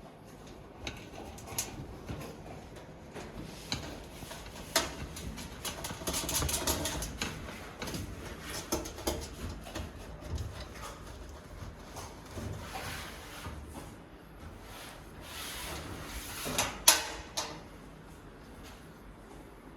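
Parts of a metal DVR rack being handled and fitted together: scattered clicks and knocks with stretches of scraping, and one sharp knock near the end.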